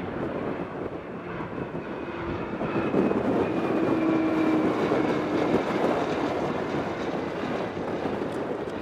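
Jet airliner's engines passing: a rushing roar that swells about three seconds in and eases off toward the end, with a steady low hum and a faint high whine that slowly falls in pitch.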